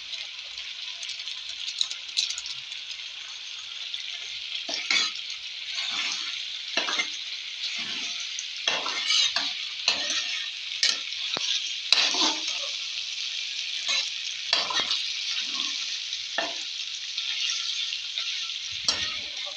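Pasta frying and sizzling in a steel kadhai while a steel spatula stirs it. From about five seconds in, the spatula scrapes and knocks against the pan roughly once a second over a steady sizzle.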